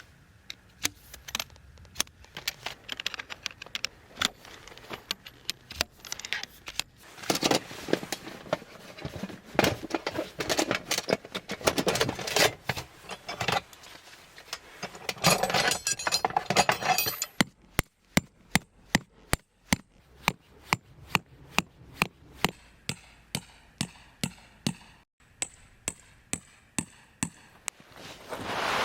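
Objects being handled: a busy stretch of clicks, knocks and rattling, then a regular run of sharp ticks about twice a second.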